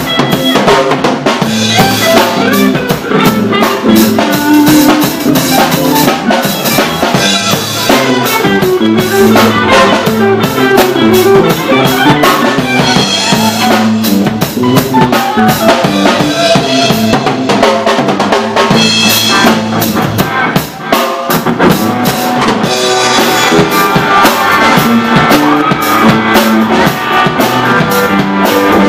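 Live rock band playing loudly: electric guitars over a drum kit with steady snare and bass-drum hits, with a brief drop in level about two-thirds of the way through.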